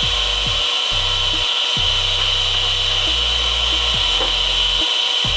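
Bench-mounted aluminium-cutting circular saw running free with no cut being made. The spinning blade gives a steady high whine over the motor's hum.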